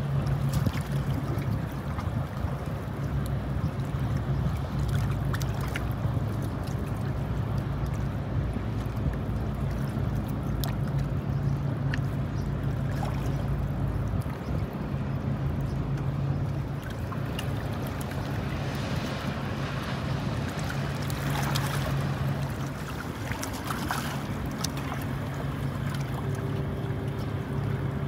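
Steady low drone of a vessel's engine over a constant wash of noise, easing slightly a few times.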